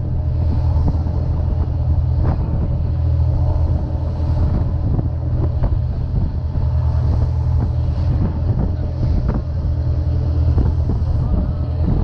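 Sportfishing boat's engine running steadily under way, a constant low drone, with water rushing past the hull and wind on the microphone.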